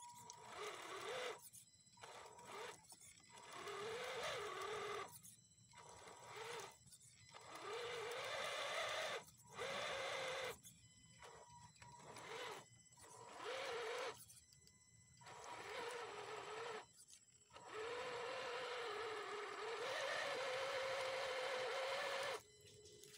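Radio-controlled scale crawler truck's small electric motor and gearbox whining in repeated bursts as the throttle is applied and released, the pitch rising and falling, with short pauses between. The longest run of several seconds comes near the end.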